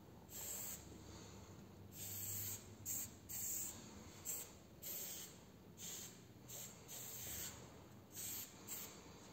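Pen strokes on paper while sketching graffiti letters: about eleven short scratchy strokes in quick, uneven succession, the longest about half a second.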